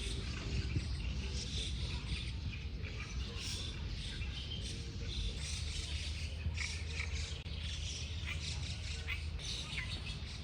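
Birds chirping and calling in quick short notes, over a steady low rumble.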